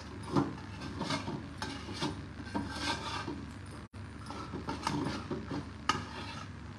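Wooden spatula scraping and knocking in uneven strokes against a brass pan as a thick ragi dough with jaggery is stirred and mashed, over a low steady hum.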